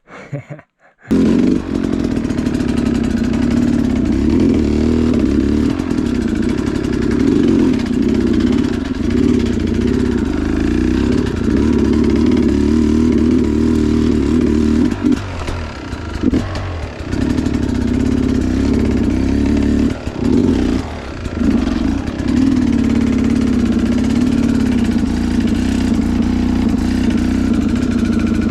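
Two-stroke Sherco enduro dirt bike engine, fitted with a Smart Carb, running under throttle while riding through rough terrain. It comes in abruptly about a second in after near silence, and the throttle drops off briefly twice in the second half.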